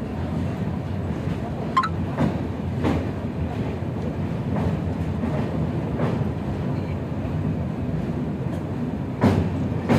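Express train running over a rail bridge, heard from inside a coach: a steady rumble of wheels on rails, broken by irregular sharp clacks, the loudest near the end.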